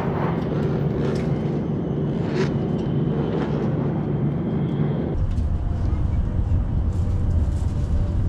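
Steady running rumble inside a Hokuriku Shinkansen bullet train's passenger cabin, shifting to a deeper, heavier rumble about five seconds in.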